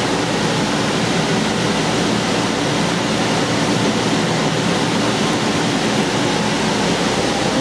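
Steady rushing air and motor noise from the electric blower that keeps an inflatable bounce house inflated, running without a break.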